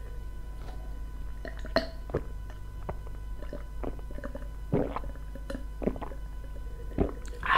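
Close-miked swallowing as a drink of cola is gulped down from a glass: a series of soft, irregularly spaced gulps and small mouth and glass clicks over a low steady hum.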